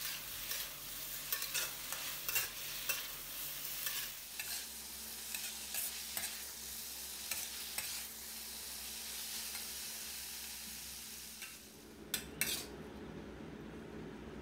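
Metal spatula stirring and scraping through a wok of bamboo shoots and minced pork, with frequent irregular clicks over steady sizzling. The sizzling drops away about twelve seconds in.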